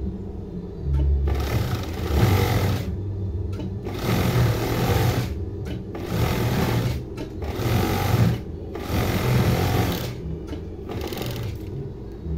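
Industrial overdeck (coverstitch) sewing machine stitching red binding tape onto knit fabric in short runs of a second or so, stopping and starting six times over a steady low motor hum.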